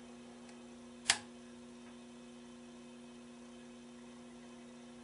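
Steady electrical mains hum from the powered antique tube radio and its Variac setup, with one sharp click about a second in.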